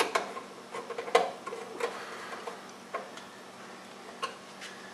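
A hand screwdriver starting screws into the sheet-metal side panel of a test fixture, making irregular light metallic clicks and ticks, with a sharper click at the start.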